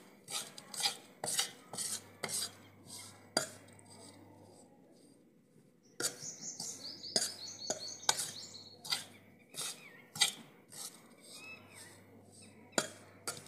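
Steel spoon scraping and clinking against a metal karahi as it stirs a dry, crumbly roasted gram-flour mixture. The strokes come in uneven bursts, with a pause of about two seconds in the middle.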